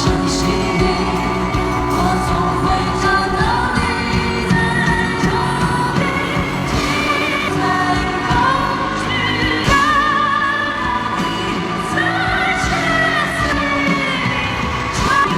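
Male singer performing a song live with band accompaniment, holding long notes with a wavering vibrato.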